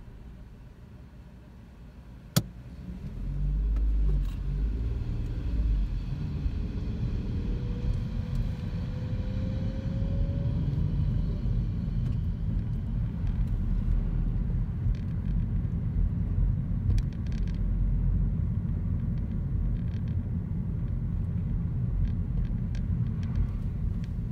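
Car engine and road noise heard from inside the cabin as the car pulls away: quiet idling at first, a single sharp click a couple of seconds in, then the engine picks up and a rising whine as it accelerates, settling into a steady low rumble of engine and tyres while driving.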